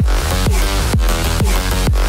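Electronic dance music with a steady beat about twice a second, each beat a deep falling bass hit, under sustained synth chords.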